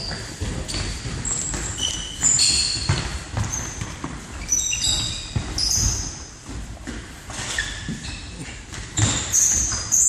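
Indoor football being played: players' shoes squeak sharply and often on the hall floor, over thuds of the ball and running footsteps.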